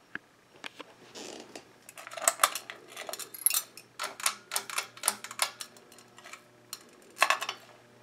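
Pull chain on an Encon Empress ceiling fan being worked by hand: a string of irregular clicks from the pull-chain switch and light metallic rattling and clinking of the chain, with the loudest cluster near the end as the lights are switched off.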